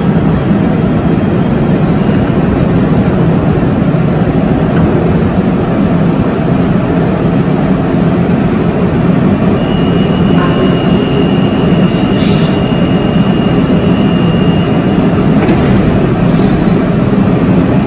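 CAF metro train standing at the platform, its on-board equipment giving a loud, steady hum. About ten seconds in, a steady high tone sounds for nearly five seconds while the doors close, followed by a click and a couple of short hisses near the end.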